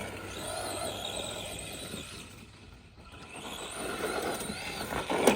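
Arrma Granite Boost RC monster truck's brushed 550 motor and gear drive whining, the pitch rising and falling with the throttle. It fades to its quietest about halfway through, then comes back louder.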